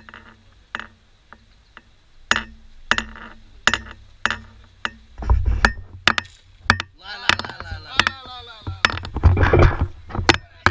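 Irregular sharp clicks and knocks throughout, then excited voices of onlookers rising in the second half and loudest near the end, as a compound bowfishing arrow is shot into a pond and splashes in the water.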